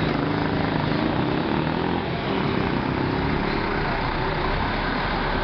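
A city bus driving slowly past at close range, its engine running with a steady low drone.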